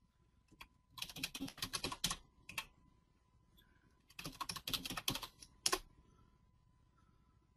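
Typing on a computer keyboard: a quick run of keystrokes about a second in, a few stray taps, then a second run around four seconds in ending with one sharp key press. A faint steady high tone sits underneath.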